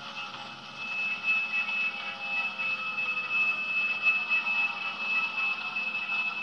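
Sound-equipped HO scale GP7 model locomotive running on the track, its Tsunami 2 sound decoder playing diesel prime mover sound through the model's small speaker, getting louder about a second in. A steady high whine runs under it throughout.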